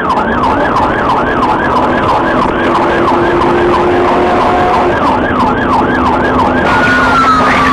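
Police car siren in fast yelp mode, rising and falling about three times a second over the cruiser's engine and road hum. Near the end it switches to one long, slowly falling wail.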